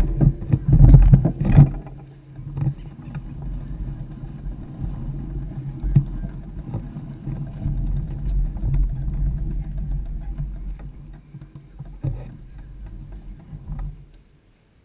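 Muffled rumble of a bicycle rolling slowly on a path, picked up by a camera mounted on the bike, with a run of loud knocks and rattles in the first two seconds and a few more later. It fades and stops about a second before the end as the bike comes to rest.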